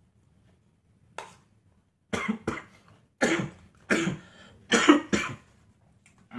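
A man sick with COVID-19 and a sore, inflamed throat coughing: one short cough about a second in, then a fit of about five harsh coughs.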